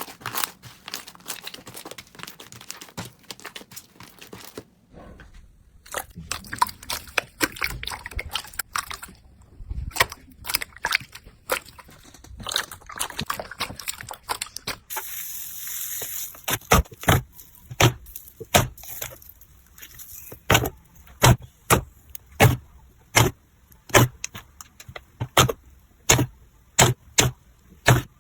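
Slime being squeezed and poked by hand: sticky crackling and popping, which about halfway through becomes a steady run of sharp clicks, about two a second.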